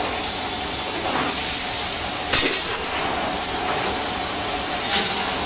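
Artichokes braising in white wine and stock in a copper saucepan on a gas burner, giving a steady simmering hiss. A single metallic clink about two and a half seconds in, with a few fainter ticks.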